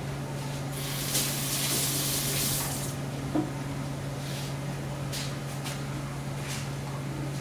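Water running for about two seconds, then a few short splashes, over a steady low hum.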